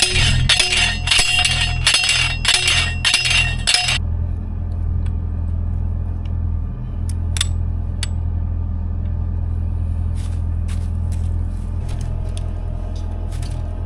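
Background music with a beat that cuts off about four seconds in, leaving a steady low engine rumble with a few light clicks and clinks.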